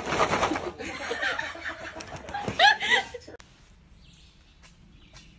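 A person laughing in quick pulses, with a short high cry that bends up and down about two and a half seconds in. About three seconds in it drops to quiet, with a few faint clicks.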